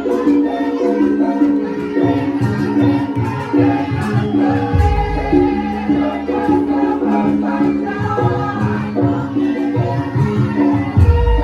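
Javanese gamelan music for a lengger dance: metallophones play steady, repeating pitched notes, and a large gong sounds with a deep, lingering boom about five seconds in and again at the very end.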